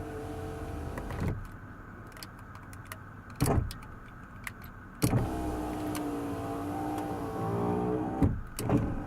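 Oldsmobile Intrigue power window motor running in two spells, a little over a second and then about three seconds, its pitch shifting during the second run. Between the runs come clicks from the window switch being worked, which the owner suspects has a dirty contact, and a sharp knock about three and a half seconds in.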